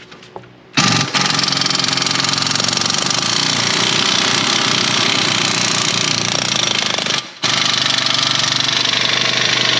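Pneumatic air ratchet running hard with a rapid, buzzing hammer, loosening a rear suspension bolt. It starts just under a second in, stops for a moment about seven seconds in, then runs again.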